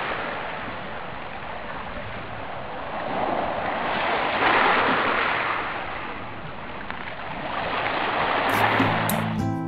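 Sea surf breaking on a beach, a steady wash that swells twice and falls away between, about four seconds apart.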